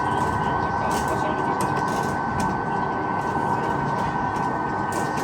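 Steady running noise of a train, an even rumble with a constant high whine over it.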